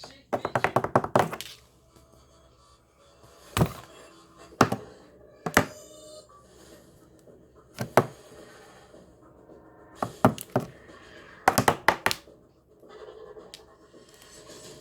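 A series of sharp taps and thunks: a rapid run of taps at the start, several single knocks spaced a second or so apart, then two more quick clusters.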